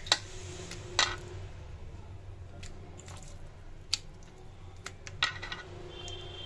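Wet squelching of thin slices of meat being dipped and turned in a thick masala marinade in a bowl, with a few sharp clicks now and then.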